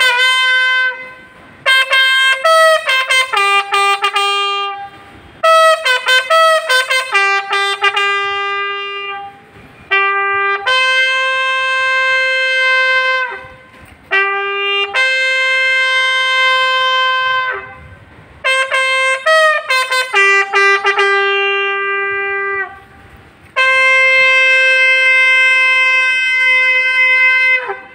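Bugle sounding a ceremonial salute call for the guard of honour: phrases of quick, tongued notes alternate with long held notes, the last held note lasting about four seconds and stopping near the end.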